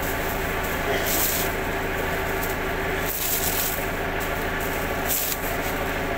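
Steady machine hum with three short bursts of hissing rustle, about a second in, at three seconds and at five seconds.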